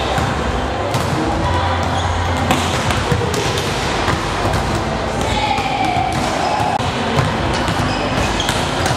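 Volleyballs being struck and hitting the court floor, a run of sharp slaps at irregular intervals in a large sports hall, with players' voices in the background.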